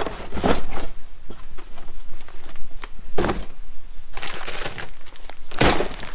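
Cardboard boxes, packets and bagged items being rummaged through and shifted in a plastic tote, giving a handful of separate scrapes, rustles and knocks, the loudest near the end.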